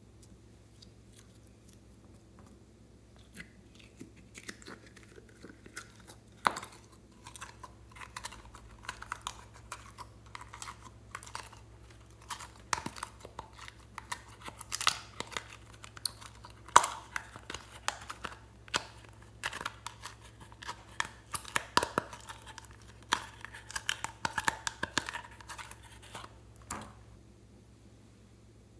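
Slime being squeezed and mixed by hand, making a long run of sharp clicks, pops and crackles that grows denser and stops abruptly near the end.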